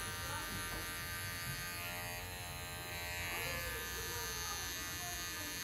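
Cordless electric hair clipper buzzing steadily as it cuts short hair on the side of the head, blending a fade.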